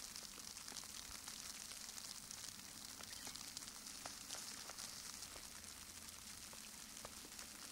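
Wet, heavy snow falling: a faint, steady hiss with a scattering of tiny irregular ticks as flakes and clumps land.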